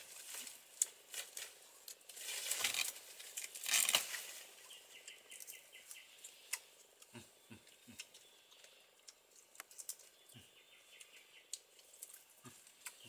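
Leaves and plant stems rustling and crackling as they are pulled and handled, with louder bursts of rustling in the first four seconds, then scattered light snaps and a few soft knocks.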